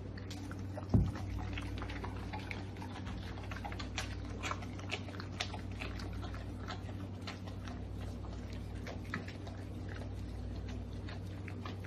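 Dogs eating from a plate: a steady run of small chewing and clicking sounds, after a single low thump about a second in.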